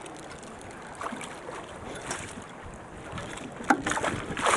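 Wind buffeting the microphone over water around the drifting fishing boat, with a sharp knock about three and a half seconds in and a sudden louder rush of noise near the end.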